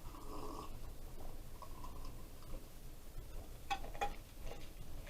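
Faint eating sounds, then two light clinks close together about three and a half seconds in, followed by smaller clicks, as food and tableware are handled at close range.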